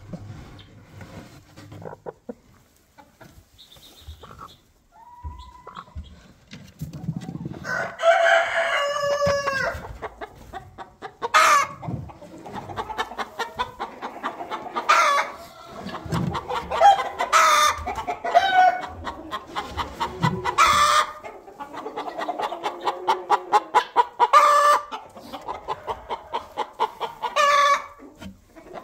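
Chickens clucking and calling in the coop: a long drawn-out call about eight seconds in, then rapid runs of clucks broken by several sharper, louder squawks.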